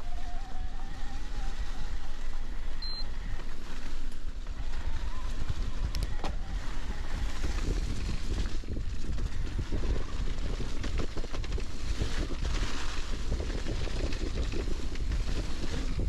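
Electric mountain bike riding over rough, leaf-covered dirt singletrack: steady tyre noise and rattling of the bike over bumps, with wind buffeting the microphone. A faint motor whine rises in pitch near the start.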